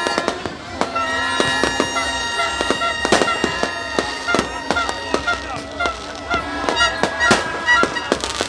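Fireworks going off in a rapid, irregular string of bangs and crackles, over steady pitched tones like horns sounding.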